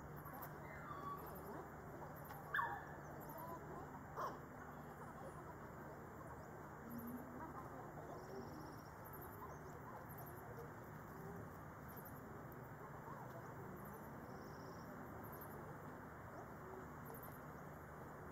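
Faint outdoor background noise with a low steady hum. Twice near the start a short high squeak falls in pitch, the second one the loudest sound, and a sharp click follows about four seconds in.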